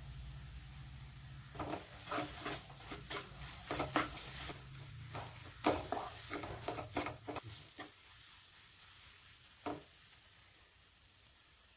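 Wooden spatula stirring and scraping a thick onion-and-spice masala in a nonstick kadai: a run of irregular knocks and scrapes against the pan from about a second and a half in until about seven and a half seconds, then one more knock near the end.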